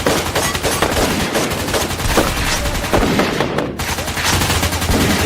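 Nerf blasters firing rapidly, a dense, continuous run of shots.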